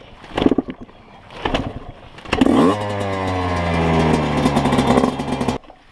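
Dirt bike engine starting: two short bursts, then it catches about two seconds in with a quick rise in pitch and runs steadily for about three seconds before cutting out suddenly near the end.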